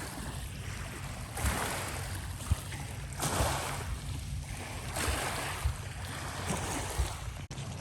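Small lake waves washing against the shore in soft swells about every two seconds, over a steady low rumble of wind on the microphone.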